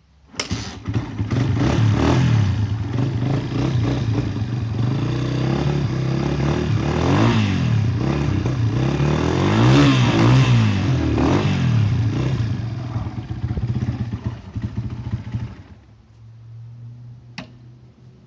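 Honda CRF150 dirt bike's single-cylinder four-stroke engine firing up with the choke off, running and being revved up and down several times, then shutting off after about fifteen seconds. This is its first startup after about seven months in storage, with the carburettor bowl drained but the carb not cleaned.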